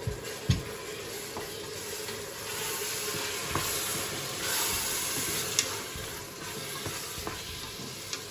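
Meat frying in oil in a stainless steel pot and being stirred with a wooden spatula: a steady sizzle with a few knocks of the spatula against the pot, the loudest about half a second in.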